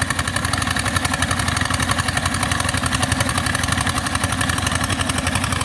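Engine of a sand-suction pumping machine running steadily at a constant speed, with an even, fast firing pulse.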